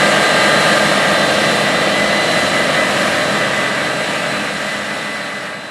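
Case IH 9250 Axial-Flow combine harvesting wheat: its six-cylinder diesel and threshing machinery run with a steady rush and high-pitched whine, fading out over the last couple of seconds.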